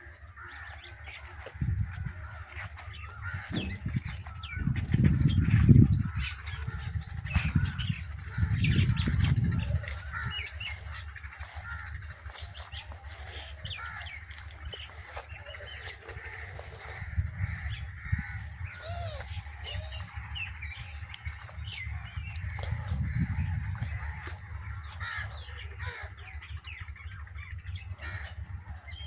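Many birds calling and chirping, with crows cawing among them. Low rumbling swells rise and fall beneath the birds twice, the loudest about five seconds in.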